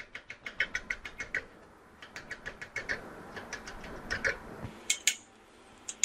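Knife chopping onion on a cutting board: quick, even taps of the blade on the board in short runs, with brief pauses between them.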